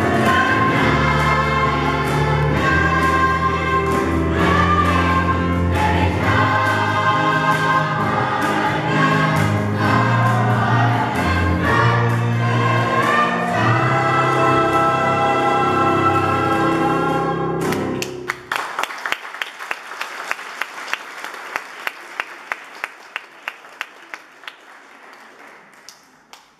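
Choir singing with a steady low accompaniment; the song ends about two-thirds of the way through and is followed by applause that dies away.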